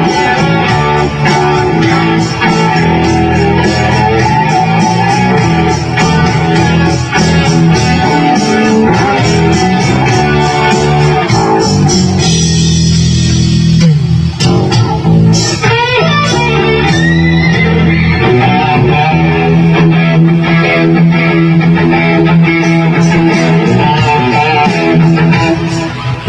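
Electric guitar played loud through an amplifier, with sliding, rising pitches around the middle; the playing stops near the end.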